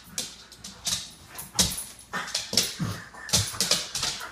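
Dog barking in a rapid string of short, high yips and whines, two or three a second.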